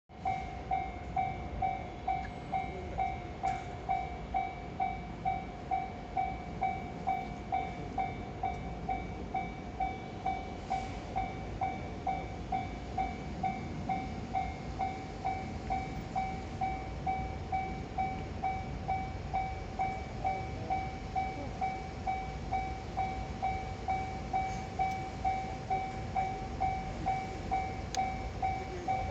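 Japanese level-crossing warning signal ringing its electronic two-tone ding, a little under twice a second, without a break: the crossing is closed for an approaching train.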